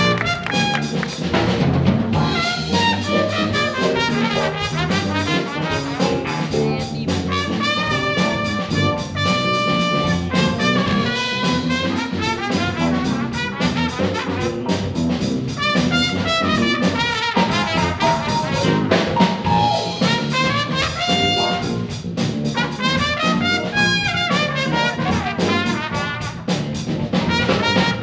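Jazz big band playing a funk tune live: trumpets and trombones over saxophones, with drum kit keeping a steady beat.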